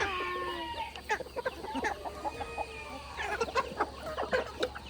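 A flock of chickens clucking, several birds calling over one another in short, overlapping calls.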